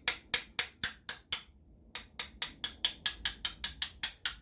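Light, rhythmic metallic taps on a steel socket extension driving a wrist pin out of a piston and connecting rod, about four or five taps a second. The tapping pauses briefly about a second and a half in, then resumes.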